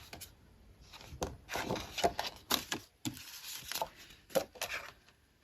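Sheets of patterned paper from a paper pack rustling and sliding as they are handled, with a few light ticks and taps.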